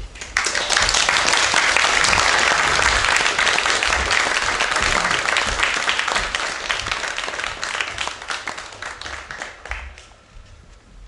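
Audience applauding: clapping breaks out suddenly, holds strong for several seconds, then thins out and dies away near the end.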